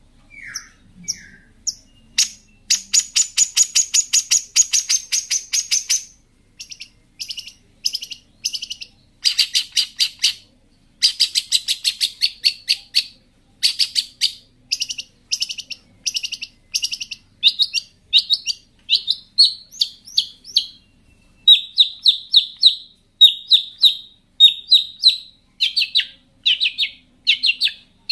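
Long-tailed shrike (cendet) singing at full intensity: a fast, rattling trill of about three seconds, then a steady run of short, harsh chattering notes repeated in quick groups.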